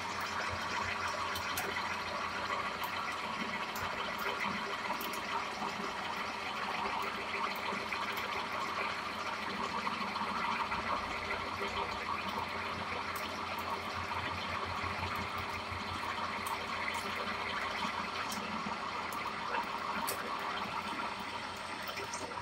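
Metal lathe running, its scroll chuck spinning a rectangular part while a boring bar cuts inside the bore: a steady cutting hiss over the lathe's drive hum, with scattered faint ticks.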